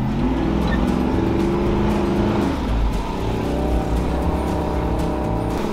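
Old Toyota FJ Land Cruiser's engine revving under load as it drives through sand, its pitch rising over the first couple of seconds, heard from inside the cab. Background music with a beat comes in during the second half.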